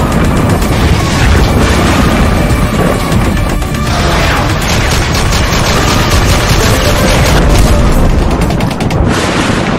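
Animated intro sound design: loud music layered with heavy booms and rapid machine-gun fire effects.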